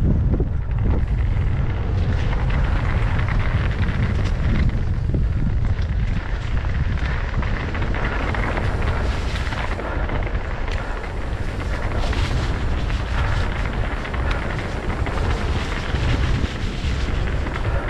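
Wind buffeting the microphone of a GoPro on a mountain bike riding downhill at about 20 km/h, a constant low rumble, with the tyres crunching over the dirt singletrack and the bike rattling.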